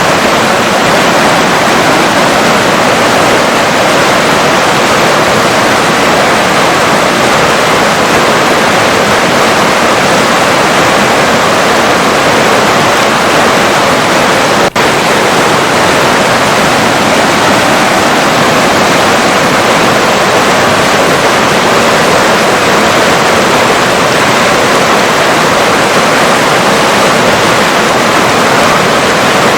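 River water flowing, a steady, dense rush of noise with no change in strength, broken once by a split-second dip in level about halfway through.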